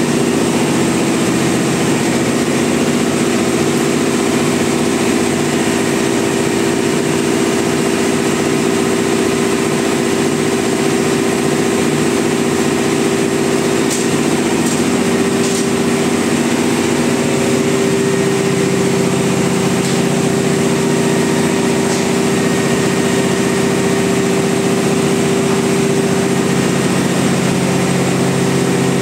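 Yanmar marine diesel engine running steadily in an engine room: a loud, even drone with a constant low hum that holds unchanged.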